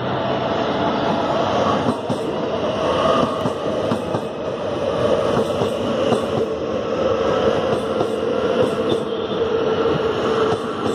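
Medellín Metro electric train passing close on elevated track. Steady wheel-on-rail running noise is joined by a motor whine that slowly falls in pitch as the train slows into the station.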